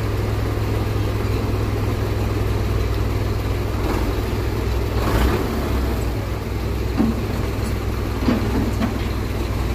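Belarus tractor's diesel engine running steadily while the tipping trolley is raised and unloading mud. A few short knocks and thuds come in the second half as mud slides off the bed.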